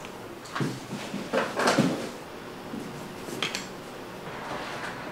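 Light knocks and rustling as a stack of stiff tent-fabric wallet pieces is handled and squared up on a wooden workbench, in three short spells, the loudest about a second and a half in.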